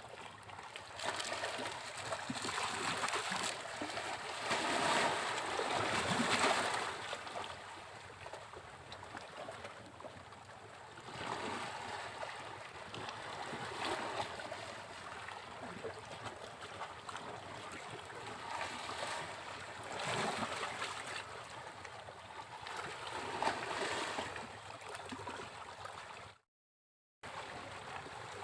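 Sea waves breaking and washing up a beach: a continuous rush of surf that swells and eases every few seconds. The sound cuts out completely for under a second near the end.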